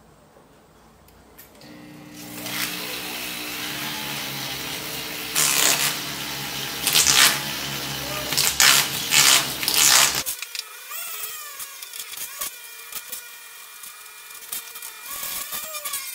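Small handheld rotary tool running with a steady hum, broken by loud scratchy bursts as the bit grinds and polishes a silver spoon. About ten seconds in, the low hum cuts off and a thinner, higher whine with wavering tones takes over.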